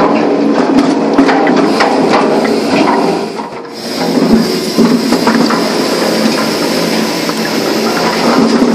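Firewood drum cleaner (trommel) running: split birch logs clatter and knock continuously as they tumble in the rotating drum, over a steady machine hum. The sound dips briefly about three and a half seconds in.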